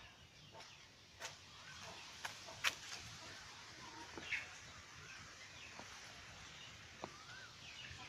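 Quiet outdoor ambience with a few scattered bird chirps and a couple of sharp clicks.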